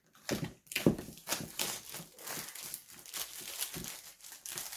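Plastic wrapping crinkling and tearing as it is picked and peeled off a cardboard box set. It sounds as an irregular run of crackles, with a few louder rips in the first second and a half.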